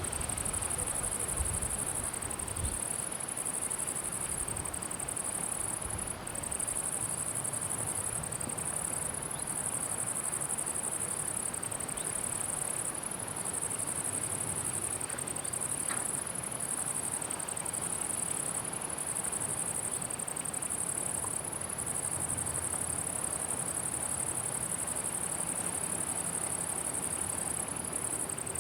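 Meadow crickets chirring in a continuous high-pitched buzz that dips briefly about every two seconds, with a light low wind rumble in the first few seconds.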